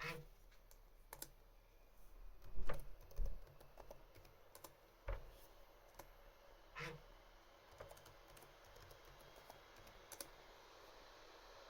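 Irregular key and button clicks on a Lenovo laptop, with a few louder taps about two and a half seconds in. A faint steady fan hiss runs underneath and grows slightly louder in the second half.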